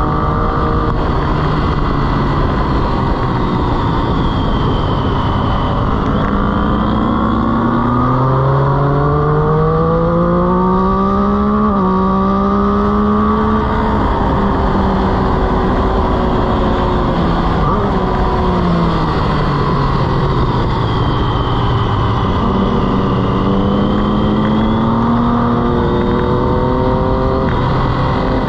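Sport motorcycle engine heard onboard at track speed: its pitch falls, then climbs steadily with a step at an upshift, falls again as the bike slows for a corner, and climbs once more near the end. Steady wind rush sits under the engine throughout.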